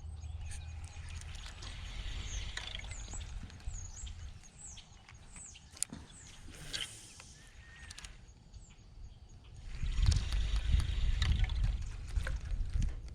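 Birds chirping over outdoor creek-side ambience, with scattered light clicks. About ten seconds in, a louder rustling, rumbling noise comes up for a couple of seconds.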